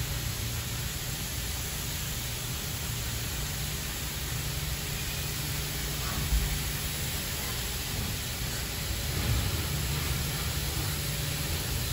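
Ryko Radius HT touchless car wash spraying high-pressure water over a vehicle: a steady hiss of spray over a low hum, with a single thump about six seconds in.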